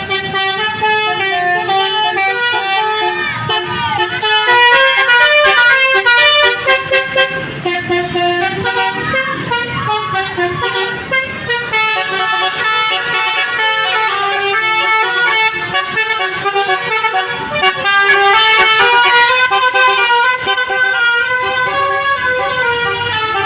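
Telolet multi-tone musical air horn on a car playing a long melody, its notes stepping from pitch to pitch with several horn tones sounding together.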